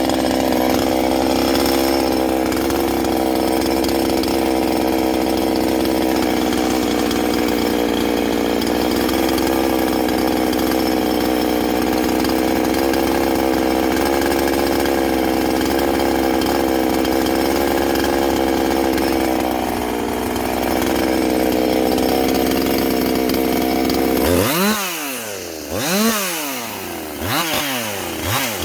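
Ported Husqvarna 350 chainsaw's 49.4 cc two-stroke engine running steadily at high speed. Near the end the throttle is let off and blipped about three times, the pitch dropping and rising with each blip, before it runs high again.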